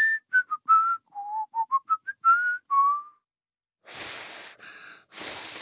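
Whistling: a short tune of about a dozen quick notes stepping up and down. Then come two breathy blows of air with no note in them, a try at whistling that fails.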